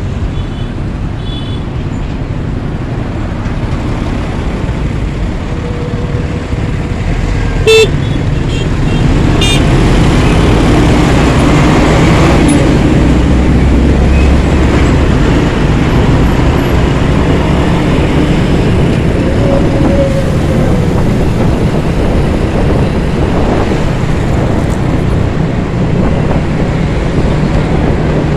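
Road traffic heard from a motor scooter stopped at a red light and then riding off: steady engine and road noise that grows louder about eight seconds in. Several short horn toots, the loudest about eight seconds in.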